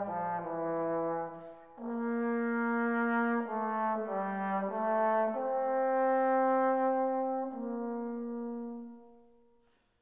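Music: a slow brass melody of held notes, one note after another, fading out near the end.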